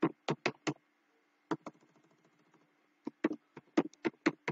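Computer keyboard being typed on: a quick run of four key clicks, a lone click about a second and a half in, then a faster run of keystrokes over the last second and a half.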